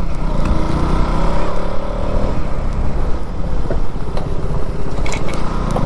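Motorcycle engine running as the bike rides along, under a steady rushing road noise.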